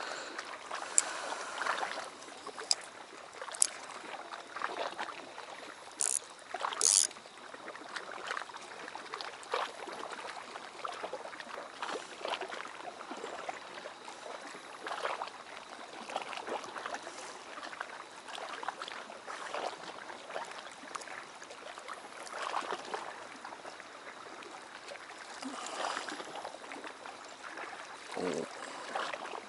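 Small waves lapping and slapping irregularly against a stone harbour wall, with a couple of sharp high clicks about six and seven seconds in.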